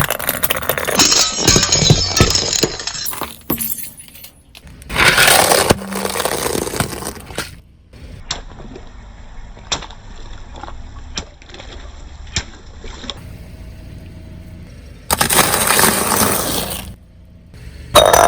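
Car tyres crushing brittle objects: several loud bouts of crunching and breaking, with sharp cracking and clinking, and a quieter spell of scattered single cracks and clicks in the middle.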